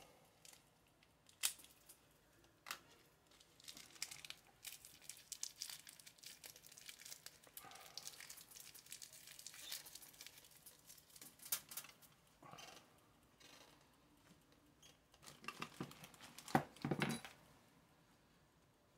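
Faint rustling and crinkling of a cloth rag and small plastic packaging while small chainsaw engine parts are handled, with scattered light clicks; a few louder knocks come near the end.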